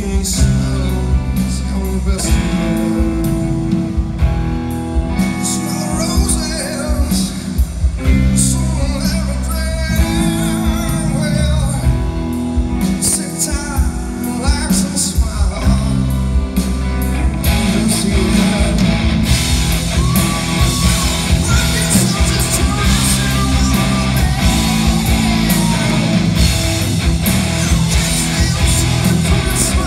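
Progressive metal band playing live: distorted electric guitars, bass and drums under sung lead vocals. About halfway through, the band turns heavier and fuller, with more cymbal and guitar.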